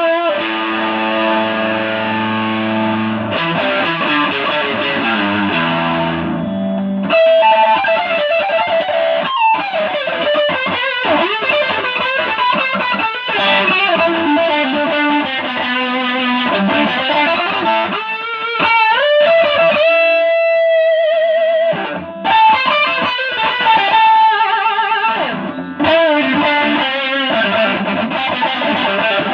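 Stratocaster-style electric guitar played through distortion and effects: sustained chords, then a falling run of low notes, then a lead line with wavering, bending notes. About twenty seconds in comes a long single note held with vibrato.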